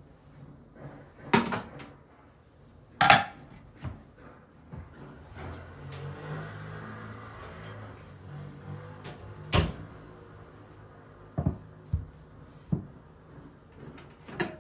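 Kitchen handling sounds: a series of sharp knocks and clatters as things are set down and moved, three of them loud, with a low steady hum for a few seconds in the middle.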